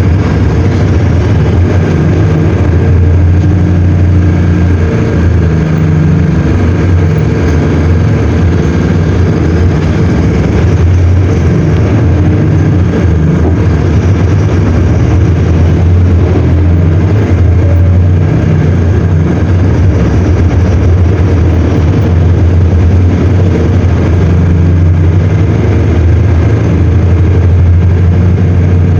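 Mercedes-Benz OM-924 LA four-cylinder inline diesel engine of an OF-1721L BlueTec 5 bus running steadily, with a deep, even drone.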